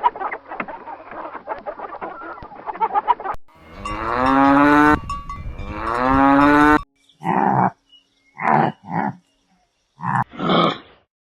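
Cattle mooing: two long, drawn-out moos, followed by several short, rougher calls with silence between them. Before the moos, about three seconds of busy clicking and rustling.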